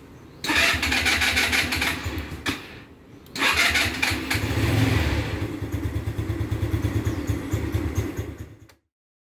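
SYM Jet Power 125 scooter's single-cylinder engine being cranked by its electric starter in repeated attempts: hard starting, which the owner puts down to a faulty spark plug. The last attempt runs on for about five seconds with a deeper pulsing before the sound cuts off near the end.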